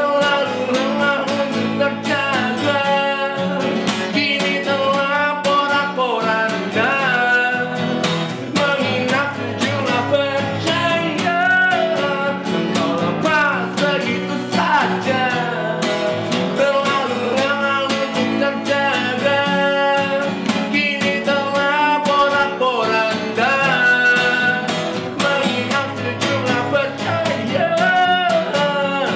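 Live acoustic song: two acoustic guitars played together while a man sings in Indonesian.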